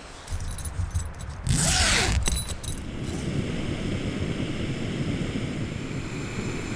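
A tent door zipper is pulled open in one short, loud run about a second and a half in, after some low handling. Then a steady rush of strong wind sets in.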